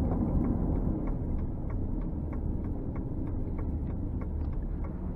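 A car's indicator clicking evenly, about three clicks a second, inside the cabin over the steady low rumble of the engine and road.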